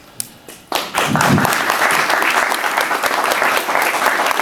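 Audience applause breaking out after a short lull, less than a second in: many hands clapping steadily.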